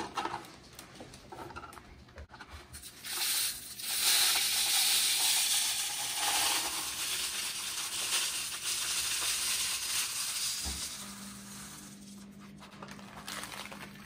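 Mixed bird seed and grains pouring from a plastic bag into a plastic-bottle bird feeder: a steady hissing patter that starts about three seconds in and tails off about eleven seconds in, with lighter rustling before it.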